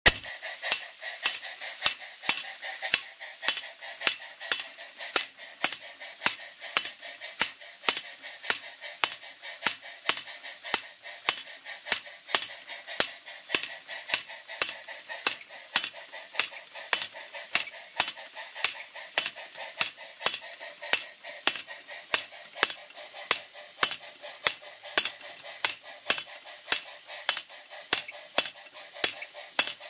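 Brass head of a home-built model steam hammer, belt-driven by a Jensen 20G toy steam engine, striking its steel anvil plate in a steady metallic clinking rhythm, about two strikes a second, over a continuous hiss.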